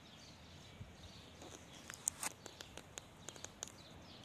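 Faint outdoor background hiss with a run of short, light clicks and high chirps starting about a third of the way in.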